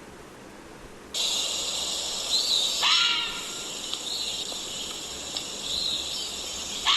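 Fisher (fisher cat) calls: short high arched cries, with two louder screeching cries, one about three seconds in and one near the end. Under them a steady high hiss starts abruptly about a second in.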